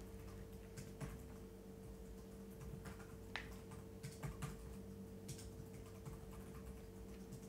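Computer keyboard being typed on: faint, irregular key clicks as a password is entered, over a steady low hum.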